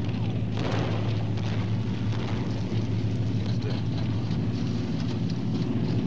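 Steady drone of a four-engine bomber's piston engines heard inside the aircraft: a deep, even hum with a rushing hiss over it.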